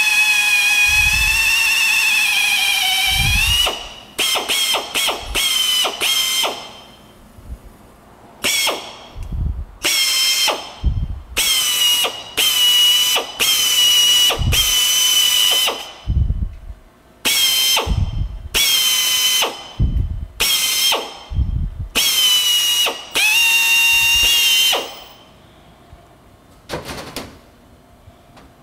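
Air drill turning a .374 reamer through the valve guides of a cylinder head, a high whine. It runs for about four seconds, then comes in many short bursts as the trigger is pulsed, and stops a few seconds before the end.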